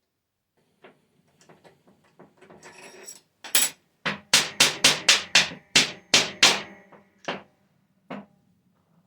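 A run of sharp, ringing metal knocks, like hammer taps on steel: a few faint clicks and a brief scrape first, then about ten loud strikes at roughly four a second, and two more spaced-out knocks near the end.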